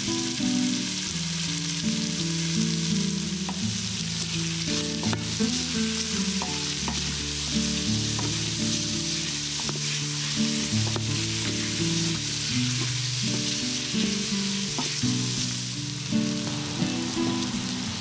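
Chopped bacon and diced onion sizzling steadily in the stainless-steel inner pot of an Instant Pot on its sauté setting, with a wooden spatula stirring and scraping against the pot. Low steady notes of background music run underneath.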